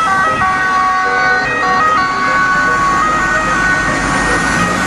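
Ambulance two-tone siren, alternating between two pitches, over traffic noise as the ambulance drives past.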